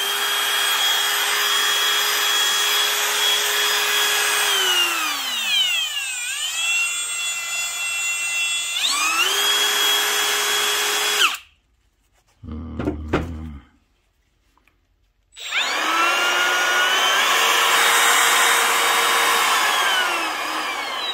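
Milwaukee M18 FUEL cordless trim router running free with no load, its whine dropping to a lower speed about five seconds in and climbing back about nine seconds in, then switched off and spinning down at about eleven seconds. A brief clatter of the tool being handled follows, then a Makita cordless trim router starts at about fifteen seconds, runs free, and begins to wind down near the end.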